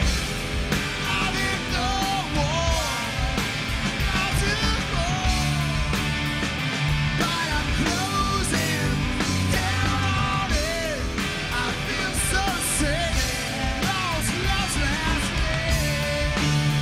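Live rock band playing at full volume: electric guitars, bass and drums, with a male lead vocal sung hard, close to a shout, and a second voice singing along.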